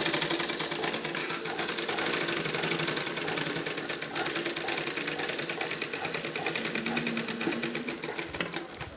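Picot sewing machine running, stitching a picot edge in silk thread: a steady, fast mechanical clatter of the needle and feed that fades and stops near the end.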